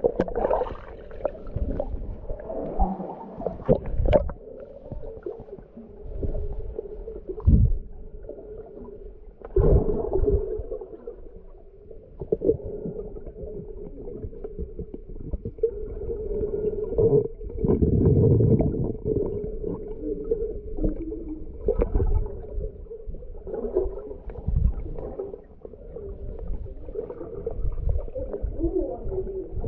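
Muffled underwater sound from a submerged camera: water swirling and gurgling, with irregular dull thumps and a steady low hum.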